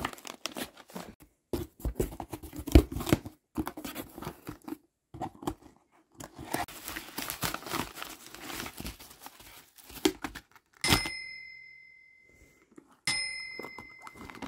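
Cardboard box and plastic bubble-wrap mailer being torn open and rummaged through: irregular tearing and crinkling with short pauses. Toward the end, two clear bell-like dings sound about two seconds apart, each fading over a second or so.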